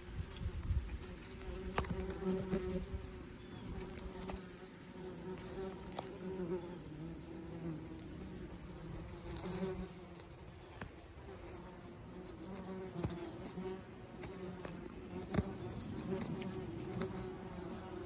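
Yellowjacket wasps buzzing at the entrance of their paper nest: a steady hum of wingbeats that wavers in pitch and loudness as the wasps move about.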